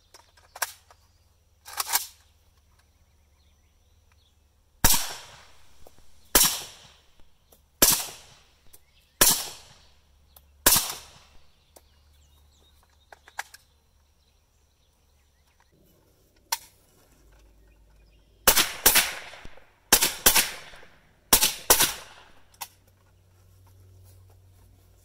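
Suppressed AK-47 firing Brown Bear 196-grain 7.62x39 subsonic rounds. After a couple of light clicks come five evenly spaced shots about a second and a half apart, then a pause, then a faster string of about six shots fired in quick pairs. Each shot is a sharp report with a short ringing tail.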